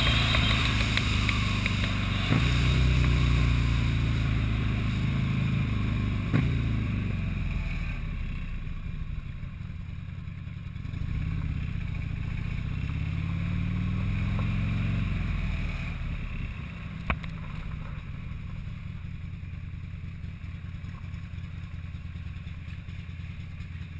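Buell motorcycle's V-twin engine slowing down: at speed with wind noise at first, the engine note drops as it rolls off, the revs rise and fall briefly once more, then it settles to a quieter low-rev run near the end.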